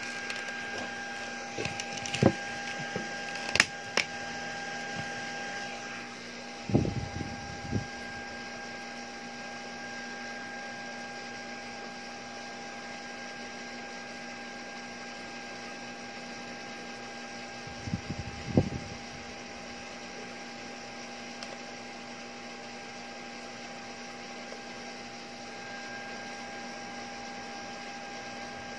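Steady electrical whir of a Philips Lumea Precision Plus IPL hair-removal handset, with a high pitched tone in the hum. A sharp click comes about three and a half seconds in, and a few dull knocks come around seven and eighteen seconds in.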